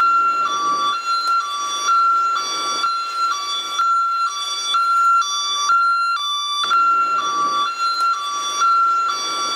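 American ambulance siren in hi-lo mode: two steady electronic tones alternating high and low, each held about half a second, in an even, unbroken cycle.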